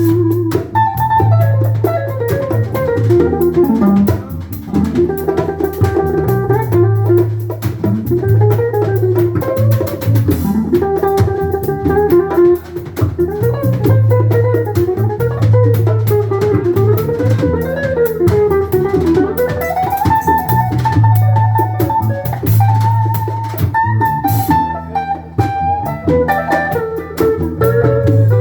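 Instrumental band music: a guitar playing a wandering melody line over a drum kit.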